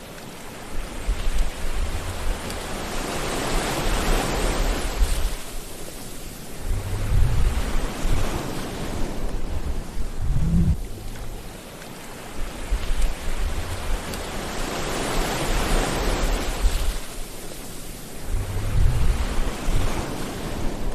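Sea waves washing onto a shore, the surf swelling and falling back twice, with short low rumbles in between.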